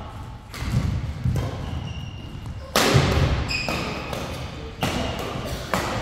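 Badminton doubles rally: rackets strike the shuttlecock sharply several times, the loudest hit about three seconds in. Short high squeaks of court shoes and thuds of footsteps sound in between.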